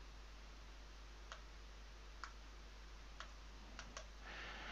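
Faint computer mouse clicks, about five, scattered over steady low hiss, with a short soft hiss near the end.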